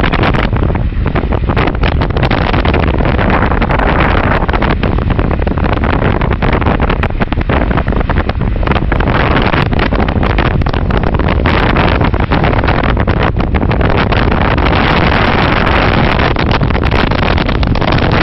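Car driving, with a steady low rumble and rushing noise and frequent crackles of wind buffeting the microphone.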